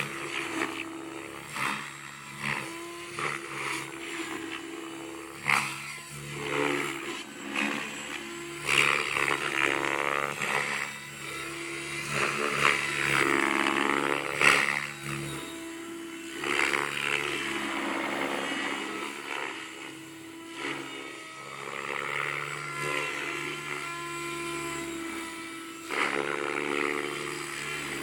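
Electric RC helicopter on Edge rotor blades in flight: a steady motor and rotor whine, with rushing blade noise that swells and fades again and again as it manoeuvres.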